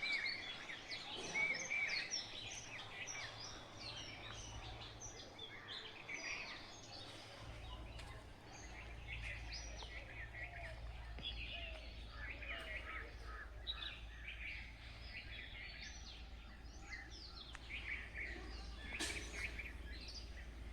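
Many small birds chirping and twittering together in a faint morning chorus: a dense run of short, quick high calls. A low steady hum sits underneath.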